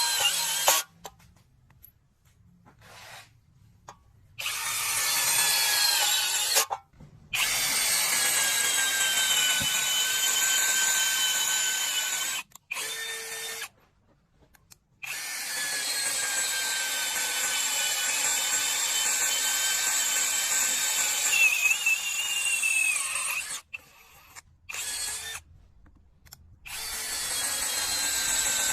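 DeWalt 20V brushless cordless drill running with a steady whine, switched on and off repeatedly. The runs range from short blips to one of about eight seconds, and the pitch shifts slightly within them.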